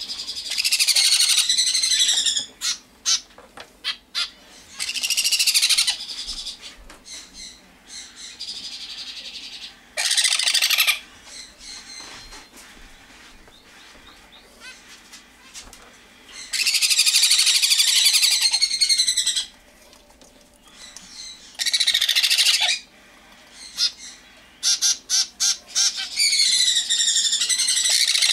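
Baby birds begging for hand-feeding formula: loud, wavering high calls in bursts of one to three seconds, about six times, with quieter chirps between.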